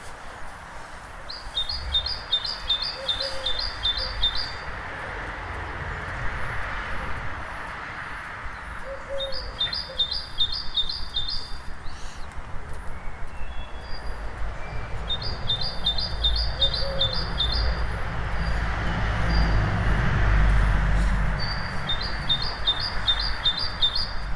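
Dawn chorus in a town: a songbird sings four bouts of a fast, evenly repeated two-note phrase, about seven seconds apart, with a few short chirps from other birds. Underneath is a low traffic rumble that swells and fades, loudest a few seconds before the end.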